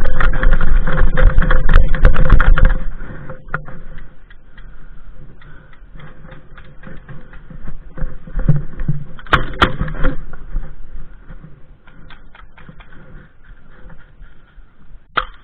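Movement noise of an airsoft player moving up: loud rumbling and rattling of gear and clothing against the camera for about three seconds, then quieter scattered clicks and knocks, with a brief louder cluster about nine seconds in.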